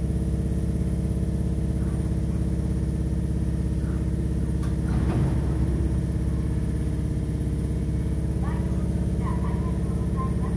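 Stationary Nagano Electric Railway 3600-series electric train humming steadily at the platform, its onboard equipment running while it waits. A brief knock about five seconds in.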